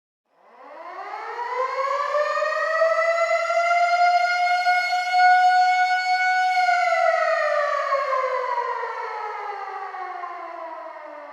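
Civil defense air raid siren starting from silence and winding up in pitch to a steady high tone. It holds that tone for a few seconds, then winds down in a long, slow falling slide.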